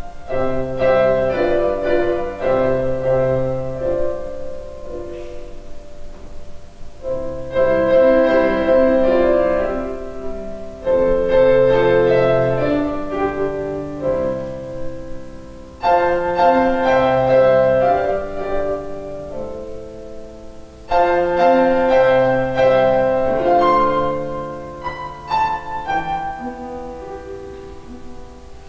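Grand piano played solo: slow phrases of held chords, each opening with a loud chord that then fades away, a new phrase beginning every four or five seconds.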